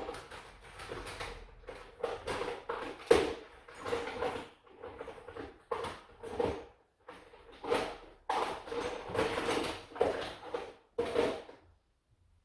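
Hands rummaging and handling small hard objects, with irregular clattering and rustling and one sharp click about three seconds in.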